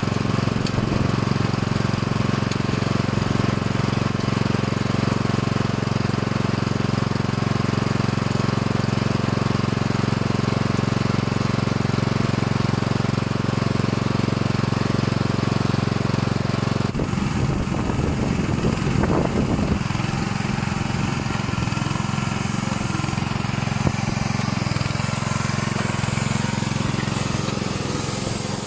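The engine of a hydraulic cold-paint road line striper running steadily, with a fast, even pulsing hum. About two-thirds of the way through, the sound changes abruptly and becomes slightly quieter and rougher.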